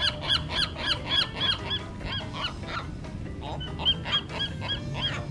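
Birds calling: a rapid run of short, high calls, about four a second, then a shorter second run a little later.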